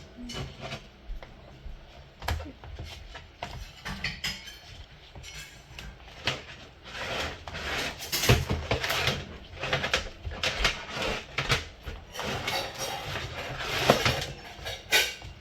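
Irregular clicks, taps and scraping from taking apart a Timex alarm clock's plastic case, working at a part that is hard to get out, with a few sharper knocks.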